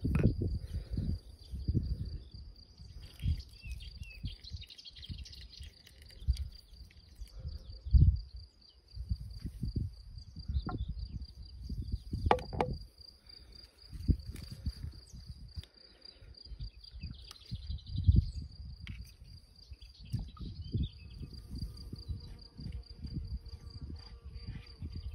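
An insect trilling steadily at one high pitch, with irregular low rumbles and thumps underneath.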